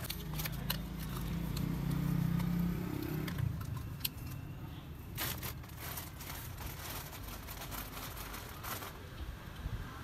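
A low engine rumble, loudest over the first three seconds or so, as of a vehicle passing, then a few sharp plastic clicks and crackles as snap-on lids are pressed onto plastic cups.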